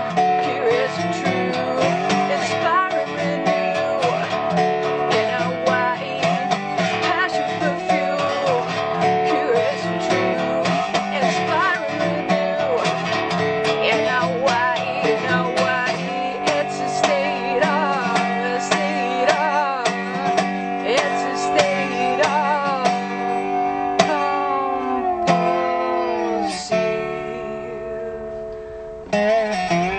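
Gretsch resonator guitar being strummed and picked in a bluesy rhythm, with a woman's voice singing over it at times. Near the end the playing thins out and drops away briefly, with a falling slide, before coming back in.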